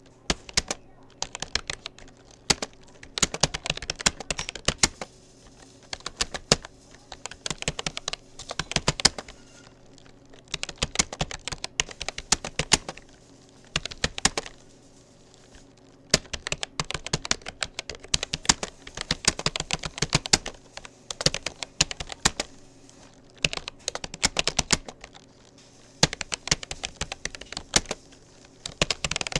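Typing on a Rapoo computer keyboard: quick runs of key clicks in bursts of a second or two, separated by short pauses, over a faint steady hum.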